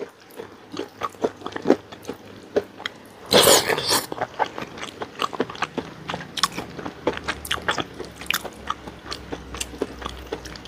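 Close-up chewing and crunching of crispy fried tempe, picked up by a clip-on microphone, with wet mouth clicks and smacks throughout and one louder crunch about three and a half seconds in.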